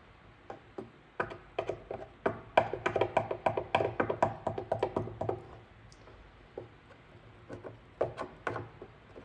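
A quick, irregular run of sharp taps and clicks from a plastic-welding iron working along a crack in an ATV's plastic panel, melting the crack over. The taps are thickest in the first half and come back in a short cluster near the end.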